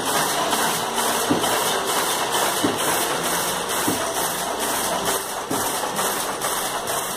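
Power loom fitted with a four-colour weft selector, running at speed: a steady mechanical clatter with an even beat of about three sharp strokes a second.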